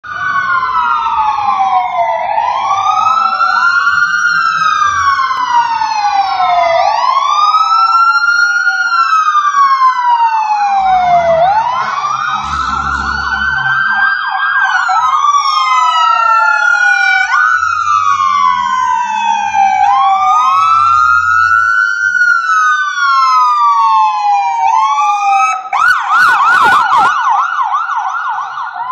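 Sirens of several fire trucks responding together, their slow rising-and-falling wails overlapping. Near the end a fast yelp takes over as a ladder truck passes close.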